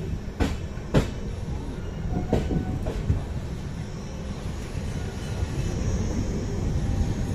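LHB passenger train coach rolling along the track, a steady rumble with a few sharp clicks from the wheels crossing rail joints.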